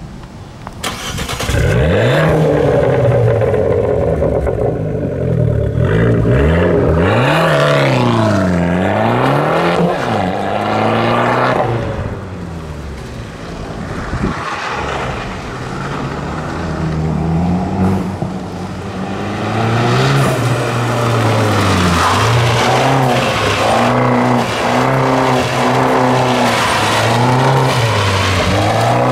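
Fiat 500 Abarth's small turbocharged four-cylinder through a tuned aftermarket exhaust, accelerating hard with the engine pitch climbing and dropping at each gear change. Around the middle it fades as the car gets farther off, then comes back loud, revving up and down as it passes close.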